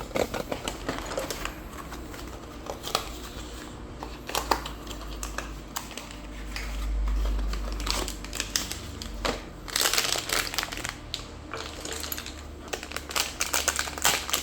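Hands handling plastic: scattered small clicks and knocks with crinkling of plastic packaging, which grows denser about ten seconds in.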